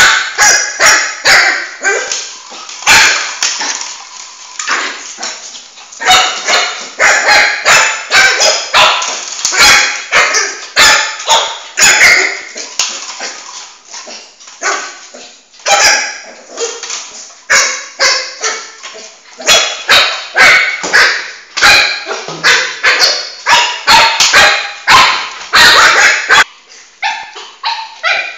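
Shih Tzu puppy barking over and over in short, sharp barks, about two a second, in its excitement at play, with a brief lull near the end.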